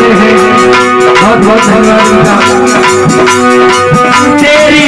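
Instrumental bhajan music: held melody notes over a steady drum rhythm, with no singing.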